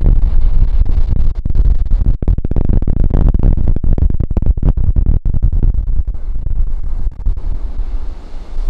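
Ocean surf on a beach with heavy wind buffeting the microphone, a deep irregular rumble that eases slightly near the end.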